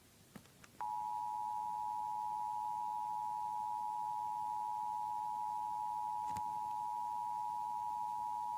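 Emergency Alert System two-tone attention signal: a steady two-pitch tone that starts about a second in and holds unchanged, announcing a Required Monthly Test.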